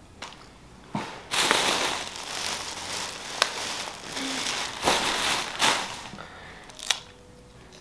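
Large plastic shopping bag rustling and crinkling as it is lifted and handled, with sharp crackles in the rustle. It starts suddenly just over a second in and dies away about six seconds in.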